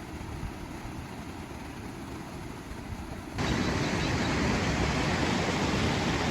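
A low rumbling noise, then about halfway through a sudden switch to the loud, steady rush of a waterfall.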